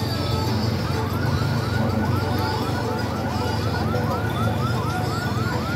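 Electronic siren sounding a fast yelp: quick falling sweeps, about three a second, starting about a second in, over a steady low rumble.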